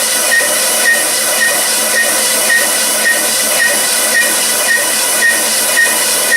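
A machine running with a steady hiss and several steady tones, with a short high squeak repeating about twice a second.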